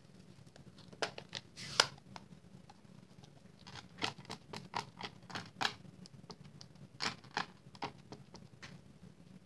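Stampin' Up! Balmy Blue ink pad patted onto a stamp held in a Stamparatus to ink it: irregular light taps and clicks of the pad's plastic case, with a sharper click about two seconds in.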